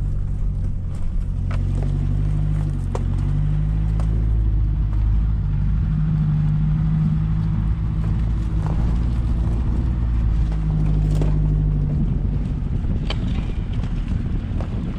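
A 4WD's engine running at low speed with a steady low hum, the note shifting about twelve seconds in, with occasional short knocks and clicks over it.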